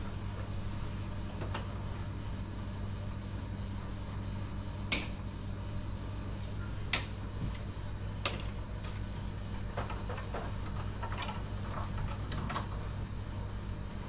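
Steady low machinery hum in a ship's equipment room, with sharp clicks and taps of hands and tools working cable connectors in an automation cabinet: three clear clicks about five, seven and eight seconds in, then several fainter ticks.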